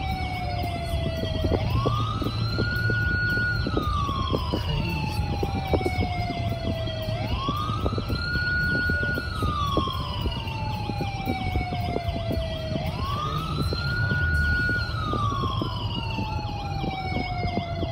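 Emergency siren on a slow wail: each cycle rises quickly, holds its top note briefly, then falls slowly, repeating about every five and a half seconds, three rises in all. Under it is the low road rumble of a moving car cabin.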